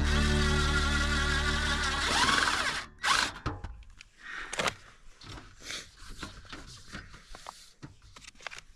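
Background music fades out about three seconds in. A cordless drill then drives screws into sheet-metal stovepipe flashing in short bursts, with clicks and handling noise between them.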